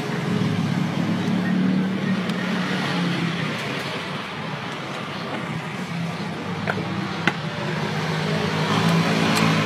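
Steady vehicle drone with road hiss, typical of riding in or beside road traffic. Two short clicks are heard a little past the middle.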